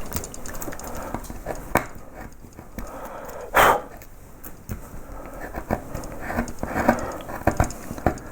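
Small hand woodcarving gouges cutting into wood: irregular clicks and short scraping cuts as the background is pared away, with one louder, longer sound about three and a half seconds in.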